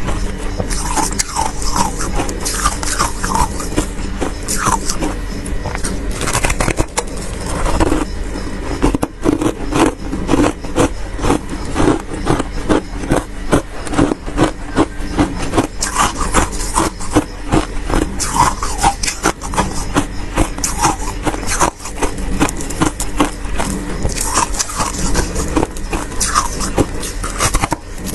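Frost being scraped off the inside of a freezer: a continuous run of rapid, scratchy scraping strokes, fastest in the middle stretch.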